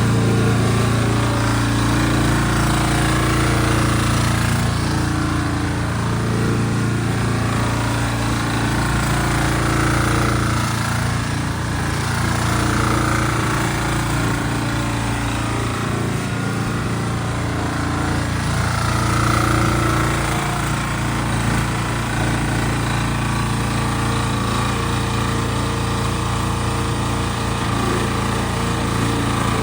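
Small engine of a JPC KV12 mini excavator running steadily, with its note and load shifting slightly at times.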